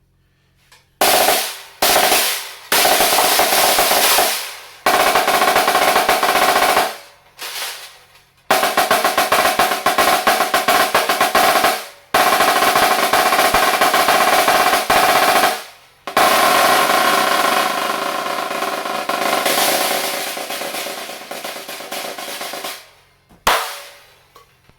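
Premier HTS 484 marching snare drum played in a series of rolls lasting a few seconds each, separated by short gaps, with a single sharp hit near the end. A steady ringing pitch from the drum sounds under the rolls.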